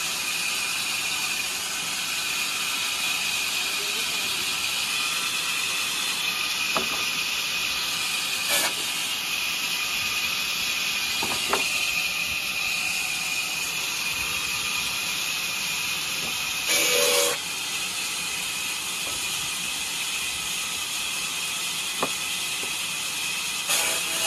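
Large vertical band saw running without cutting: a steady hiss with a faint high whine. A few short knocks of wood being handled on the saw table, the loudest about 17 seconds in.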